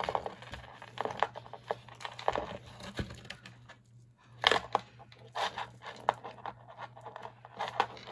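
Costume jewelry being handled: metal chains and beads clinking and rattling against each other in irregular bursts of sharp clicks, loudest about four and a half seconds in.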